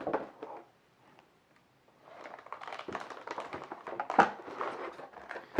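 Motherboard box packaging being handled: crinkling plastic and cardboard with irregular small clicks and taps. A quiet gap comes about a second in, and a sharper knock near the end.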